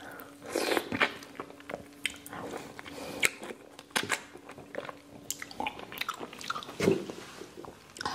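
A person biting into and chewing fresh orange slices: a quick, irregular run of sharp bites, crunches and mouth clicks.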